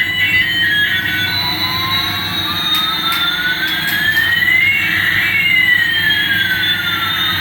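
Electronic jet-engine sound effect from a toy airliner: a steady hum under two whistling tones, one gliding up and the other gliding down, crossing about halfway, with a few faint clicks in the middle.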